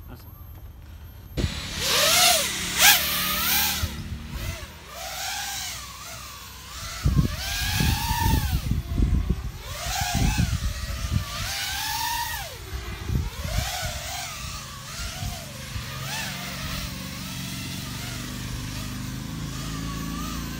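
FPV freestyle quadcopter's iFlight Xing brushless motors whining, the pitch sweeping up and down over and over as the throttle changes; the sound starts about a second and a half in. Bursts of low rumble come in around the middle.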